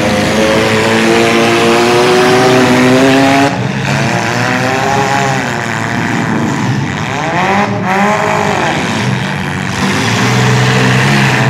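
Several demolition-derby compact car engines running hard and revving, the pitch climbing steadily for the first few seconds, then rising and falling in repeated revs. The sound drops back a little about three and a half seconds in.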